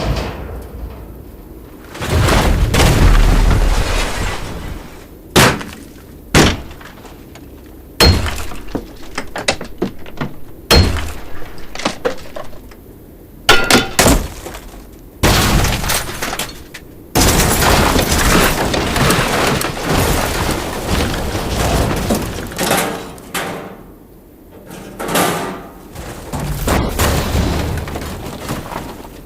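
A series of separate metal debris sounds: scrap metal and metal fragments dropping, crashing and clattering onto the ground, some single sharp impacts and some longer spills of tumbling pieces with a metallic ring, each dying away before the next.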